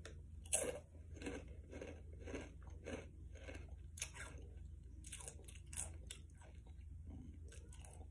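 A person chewing a mouthful of crunchy snack chips: a run of irregular crunches, about two a second.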